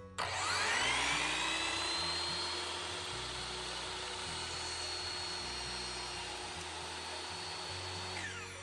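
Ridgid 10-inch sliding miter saw motor switched on, its whine rising quickly to full speed, running steadily for about eight seconds, then winding down with a falling whine near the end. Background music plays underneath.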